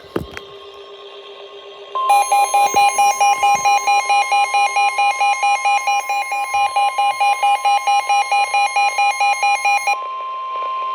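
Weather radio alert: a steady 1050 Hz NOAA Weather Radio warning alarm tone starts about two seconds in, with a weather radio's rapid pulsing beep alarm sounding over it. The beeping stops near the end and leaves the steady tone alone. It is the signal that a warning, here a tornado warning, is about to be broadcast.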